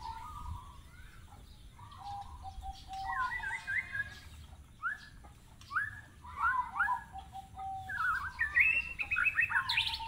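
Birds calling in a tree: a run of short chirps and rising whistled notes, coming thicker and louder over the last couple of seconds.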